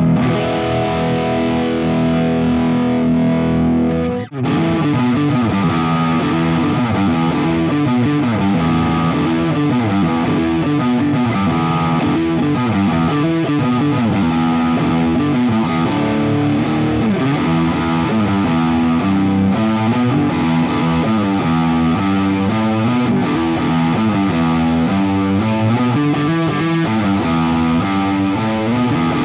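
Distorted electric guitar, a Washburn N24 with a DiMarzio DP156 Humbucker From Hell, on the middle selector position with the pickup wired in parallel, through a Fractal AX8 modelling a Friedman HBE amp. A chord rings for about four seconds, breaks off briefly, then fast runs of notes move up and down.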